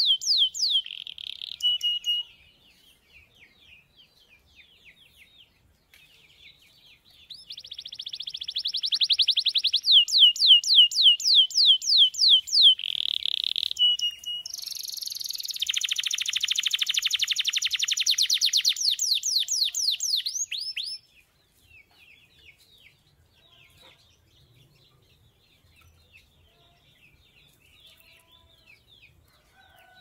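Domestic canary singing in rolling trills of fast, repeated downward-sweeping high notes. A short phrase opens, then a long loud phrase begins about a quarter of the way in and stops suddenly about two-thirds through, leaving only faint scattered chirps.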